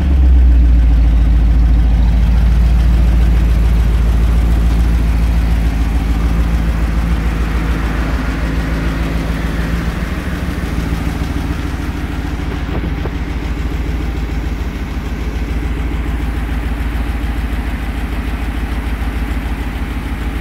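Rover V8 engine of a hot-rod truck idling steadily. It is loudest at first and eases off over the first ten seconds or so, then holds level.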